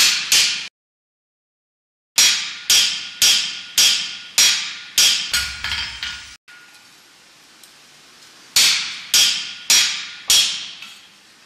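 Hammer blows on a handled punch driven into a red-hot iron bar on the anvil, opening a hole for a square crossing. The blows ring and come in three runs, about two a second, with short pauses between.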